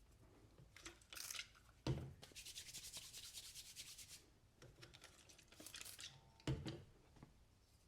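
Kizer Mercury folding knife, its pivot fitted with caged bearings, being flipped open and shut: a sharp snap about two seconds in and another near the end, with faint rubbing and handling noise between.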